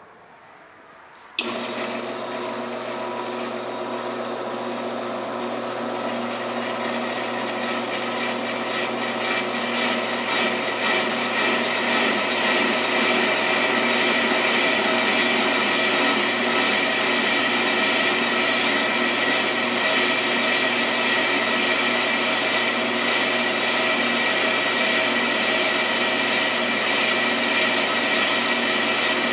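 Ammco 4000 brake lathe switched on about a second in, spinning a brake disc rotor wrapped in a damping band while its cutting bits shave the rotor faces. A steady grinding hiss with a ringing whine, growing louder over the first ten seconds or so and then holding steady.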